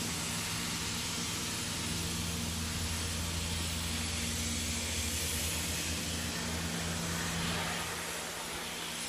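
Steady low engine hum and hiss of a motor vehicle on the street, swelling through the middle and easing near the end.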